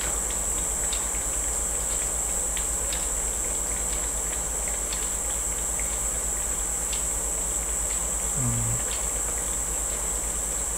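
A steady high-pitched buzz, like an insect chorus, with a fast pulsing low hum beneath it and faint scattered clicks; a short low sound breaks in about eight and a half seconds in.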